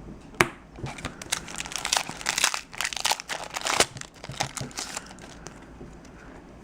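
Crinkling and crackling of a foil trading-card booster pack wrapper being handled and torn open, after a sharp click about half a second in. The crackles are thickest in the middle and die away near the end.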